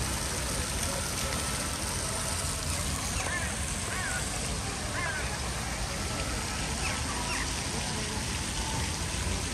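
Steady rushing outdoor noise, with short, falling bird calls several times from about three seconds in.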